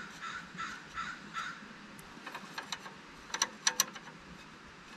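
A few faint bird calls, then several sharp, light metallic clicks of a line wrench working a brake line flare nut on the caliper, in quick succession.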